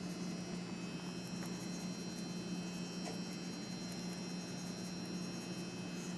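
Steady hum of a blowing fan, with faint scattered ticks of salt grains being sprinkled onto tuna steaks.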